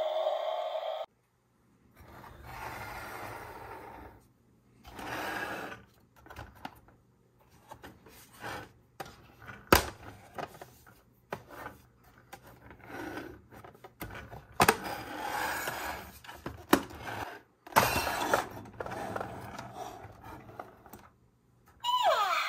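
Hard plastic toy camper being handled: irregular clicks, knocks and scrapes as its door and sides are opened and it is unfolded into a playset, with one sharp click about ten seconds in.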